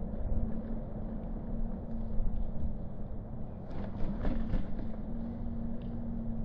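Road traffic: a steady low rumble with a steady engine hum through it, and a few light clicks about four seconds in.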